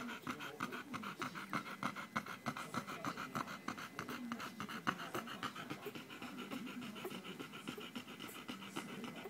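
Nursing Labrador mother panting rapidly in a quick, even rhythm, a little softer toward the end.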